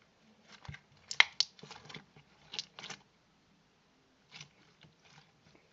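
Hard, dried-out slime being squeezed and pulled apart in the hands, giving a series of short crackling pops and clicks, bunched in the first three seconds with one more about four and a half seconds in. The slime has stiffened with age.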